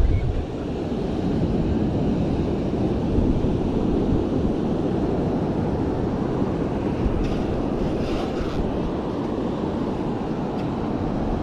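Steady low rumble of wind buffeting the microphone, mixed with the wash of surf.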